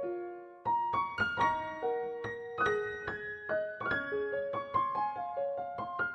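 Background music: a gentle melody of single struck notes, one after another, with a short gap just after the start.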